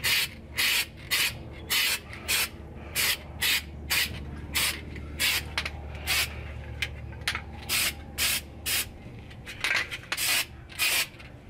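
Paint being touched up on a rusty car trunk floor in quick, even strokes, each a short hiss, about two a second, with a brief pause near the end.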